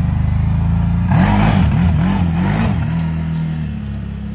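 CFMOTO CForce 1000 ATV's V-twin engine, through an aftermarket RJWC exhaust, blipped up and down about three times as the quad moves off. It then settles to a steady run, growing a little quieter as it pulls away.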